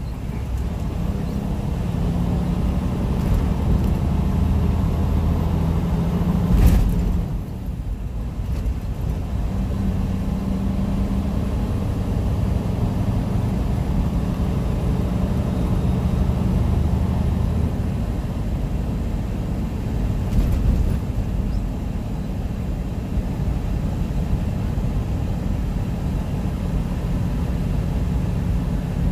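Loaded semi-truck's diesel engine running and tyre and road noise, heard inside the cab while driving. The engine note shifts a little now and then, and there is a single sharp knock about seven seconds in.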